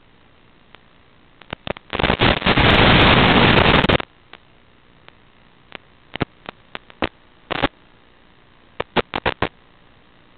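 Static hiss and crackle from an analog FPV goggle recording: a loud burst of hiss lasting about two seconds, about two seconds in, then scattered short clicks and crackles over a faint steady hiss.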